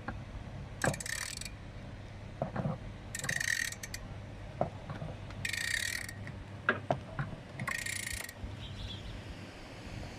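Socket ratchet wrench being worked in strokes to tighten a bolt: four bursts of rapid clicking about two seconds apart, with a few light knocks between strokes.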